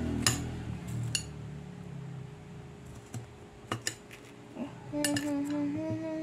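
Small kitchen knife slicing bitter gourd on a plastic cutting board: scattered sharp clicks and taps of the blade, two early ones with a short metallic ring. About three-quarters of the way in a person starts humming a held, slowly stepping note.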